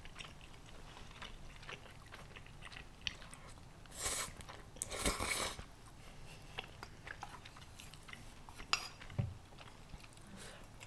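Close-miked eating of spicy instant noodles: small wet chewing clicks throughout, with two short hissing slurps or breaths about four and five seconds in.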